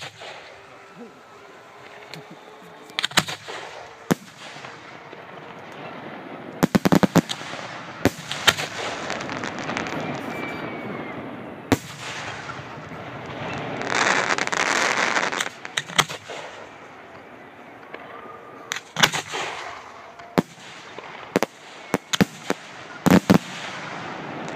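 Fireworks display: aerial shells bursting with sharp bangs at irregular intervals, some in quick clusters of two or three, over a continuous rushing noise that swells louder for a second or two a little past halfway.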